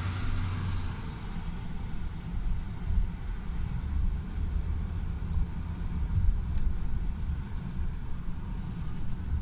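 Car driving, its engine and tyre rumble heard from inside the cabin as a steady low drone.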